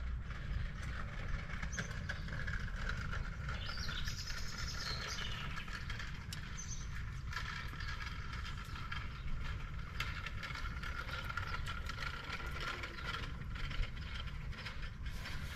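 Engine oil pouring in a steady stream from a plastic can into an engine's oil filler neck, over a steady low rumble.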